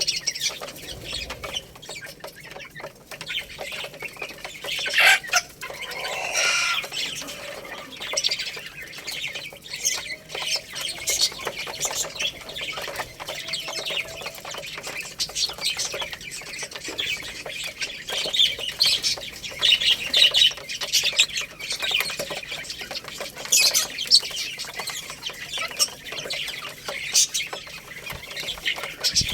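Young chickens peeping and clucking, with many short high chirps all through and a louder, longer call about five seconds in.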